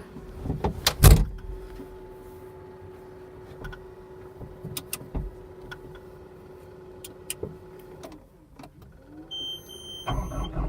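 A skid steer's cab door slams shut about a second in, followed by a steady electrical hum. Near the end a beep sounds and the Cat 242D's diesel engine starts on a cold morning.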